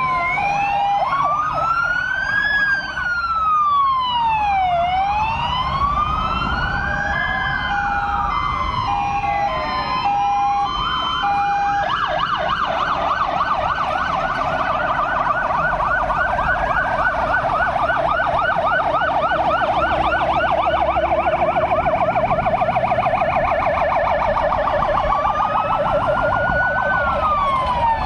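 Fire engine sirens from several vehicles at once: a slow rising-and-falling wail overlapping a two-tone hi-lo, then about twelve seconds in a rapid warbling yelp takes over, with a slow wail coming back near the end. Truck engines run underneath.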